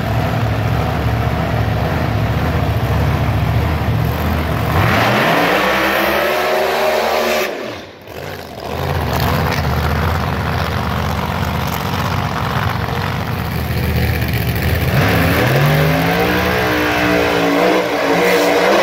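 Drag-racing car engines running loudly and steadily. Twice an engine revs up and back down, once about five seconds in and again near the end, with a brief drop in level about eight seconds in.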